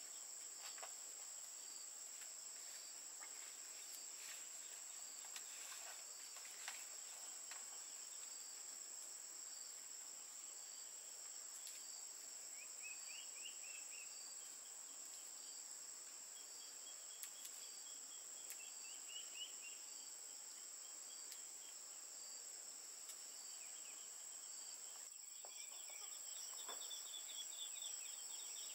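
A steady high-pitched insect drone with a second insect pulsing in a regular beat, and birds chirping now and then, more often near the end. Soft clicks and rustles of fresh leaves being folded by hand.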